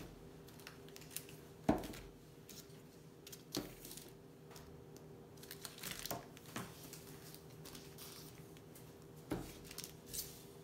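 Cellophane treat bags crinkling, with scattered light knocks as wrapped treats on sticks are set down one at a time on a tabletop. The loudest knock comes about two seconds in. A faint steady hum runs underneath.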